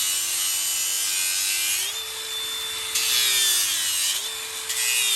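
An angle grinder with a 36-grit abrasive disc grinds down the toe of a horse's hoof wall. The motor's whine drops in pitch each time the disc bites into the hoof and rises again as the pressure eases, over a steady gritty hiss of abrasion.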